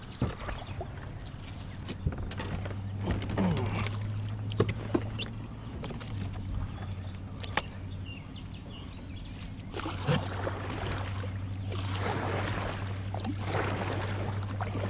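Kayak paddle strokes dipping and splashing in the water, several in a row in the second half, after a few light knocks and clicks. A low steady hum runs underneath.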